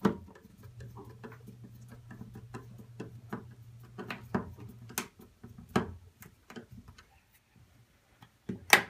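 Screwdriver tightening a wall switch's mounting screws into a metal box: scattered small metal clicks and ticks as the screws turn and the switch yoke seats, with two louder clicks near the end.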